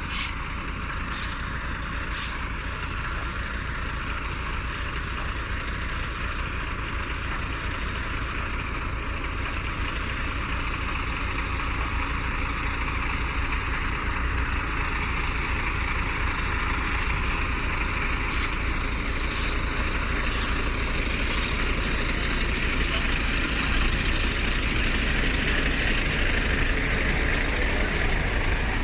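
Large diesel vehicle idling steadily, growing slightly louder, with a few sharp clicks about a second apart near the start and again about two-thirds of the way through.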